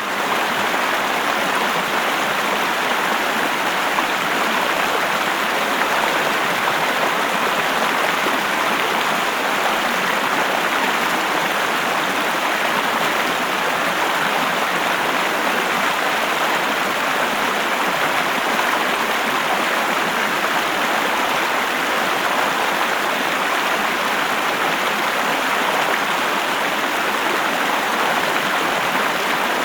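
River water flowing, a steady, even rush of moving water with no breaks or changes.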